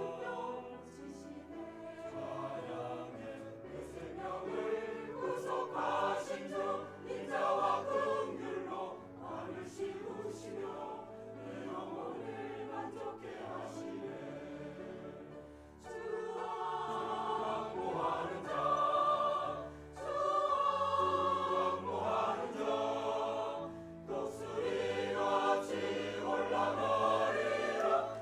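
A choir singing a worship song. The singing briefly thins out about sixteen seconds in, then comes back fuller.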